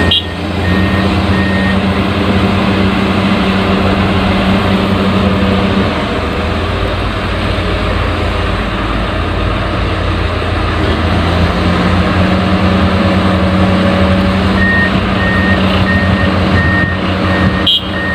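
Heavy vehicle engine running steadily, with a reversing alarm beeping in regular pulses at the start and again for the last few seconds. The engine note dips about six seconds in and picks up again around eleven seconds.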